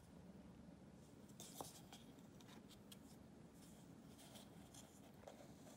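Faint scratching and rustling as a cat paws and claws at a paper cup while rolling on a cloth bed sheet, with a few small ticks among the scratches, over a low room hum.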